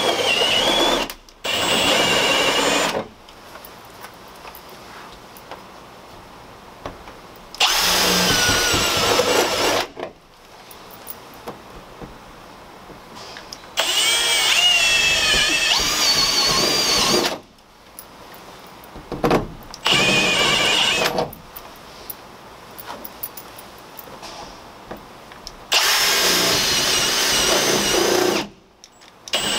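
Cordless drill boring holes up through a van's sheet-steel roof from inside, in several separate runs of two to four seconds with pauses between, the motor's whine wavering in pitch as the bit cuts through the metal.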